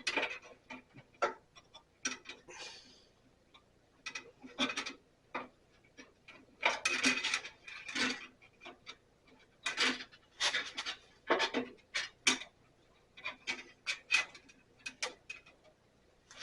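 Bandsaw blade being worked by hand onto the wheels and into its guide slot: irregular metallic clicks, taps and short scrapes, in clusters with brief pauses between.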